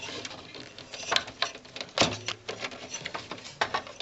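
Irregular plastic clicks and rattles as a RAM module's retaining tabs are snapped open and the memory stick is pulled from its motherboard slot, with a sharper click about two seconds in.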